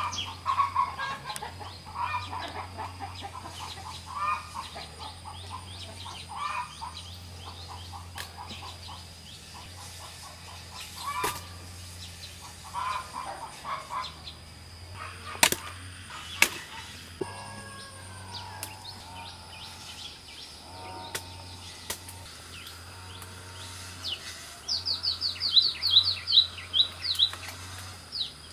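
Wild birds singing in the surrounding trees: short chirping phrases repeat through the first half, and a fast run of about a dozen high, falling notes comes near the end. Two sharp snaps sound about halfway through.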